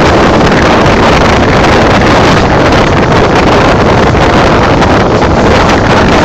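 Loud, steady running noise of a First Great Western sleeper train in motion, with wind rushing over the microphone.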